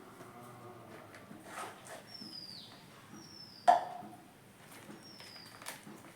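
A bird chirping repeatedly, each chirp short, high and falling in pitch, with light rustling and handling noises. A single sharp click a little past halfway is the loudest sound.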